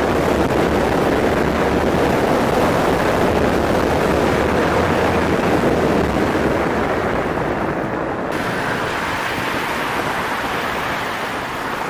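Wind rushing over the microphone, with road noise, as an electric kick scooter rides fast on asphalt. The rush changes character abruptly about eight seconds in.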